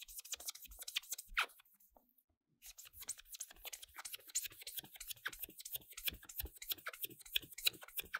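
Quick, repeated scratchy rubbing strokes on a hard surface, about five a second, with a brief pause about two seconds in.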